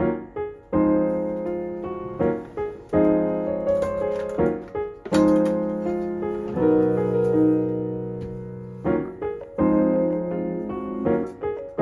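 Background solo piano music: notes and chords struck one after another, each fading away.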